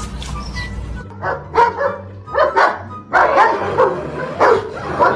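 A dog barking and yipping in a rapid string of short calls, starting about a second in, with music playing as well.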